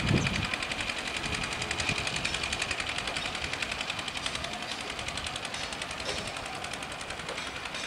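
Diesel locomotive running at low speed as it comes on over a railway bridge, with a fast, even clatter. A brief low rumble right at the start.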